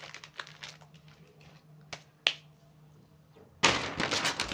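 Handling sounds with a few small clicks and one sharp click a little past two seconds in, then a brown paper grocery bag rustling and crackling loudly as a hand reaches into it, starting about three and a half seconds in.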